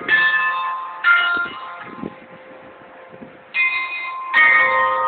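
Tower bells of a carillon playing a tune, each struck note ringing on and fading as the next comes in, with a quieter gap in the middle. Wind buffets the microphone underneath.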